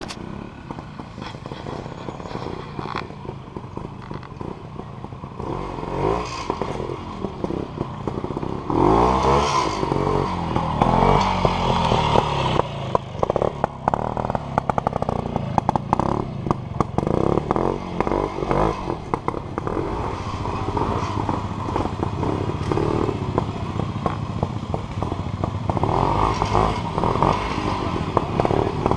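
Classic trials motorcycle engine being blipped and revved as the bike picks its way through a section, its revs rising and falling repeatedly. It is loudest about a third of the way in.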